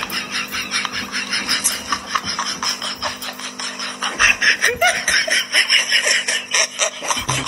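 A person laughing hard and without a break, in rapid, wheezy pulses.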